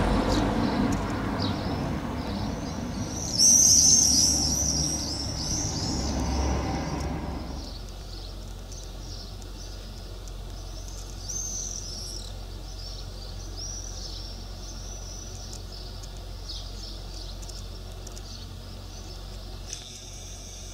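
A flock of swifts screaming in flight: shrill, drawn-out screeches in a chorus, loudest about four seconds in and again near twelve seconds. A low rumbling noise sits under the first part and stops about seven and a half seconds in.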